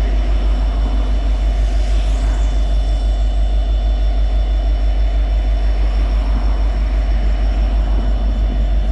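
EMD 16-710-G3 turbocharged two-stroke 16-cylinder diesel of an SD70ACe/LC locomotive running steadily, with a deep, evenly pulsing rumble.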